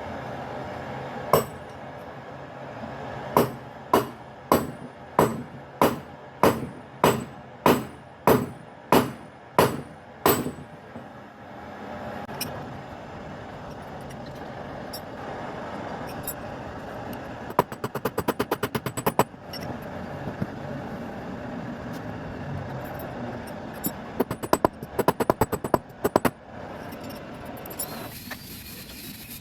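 A hammer striking metal on an anvil: one blow, then a steady run of about a dozen heavy blows, roughly two a second. Later come two quick bursts of light taps.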